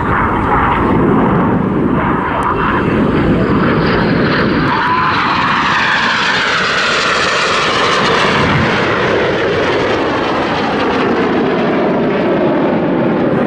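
Jet noise from Red Arrows BAE Hawk T1 jets passing low and fast, a loud steady rushing roar whose sweeping tone swells to a peak about seven or eight seconds in and then eases.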